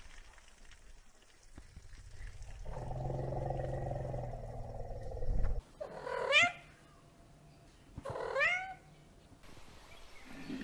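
A cat makes a low, steady sound for about three seconds, then meows twice, each meow a short call that slides in pitch.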